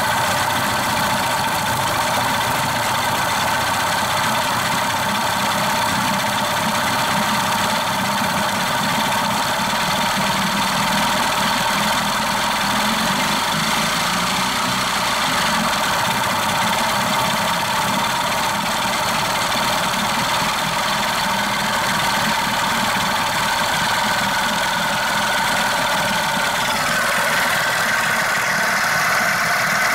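Yamaha/Mariner 6E9 40 HP two-stroke outboard motor running steadily at idle, its sound shifting a little near the end.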